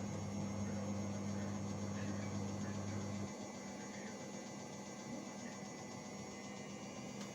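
Steady electrical mains hum that cuts off suddenly about three seconds in, leaving a fainter hum and background noise.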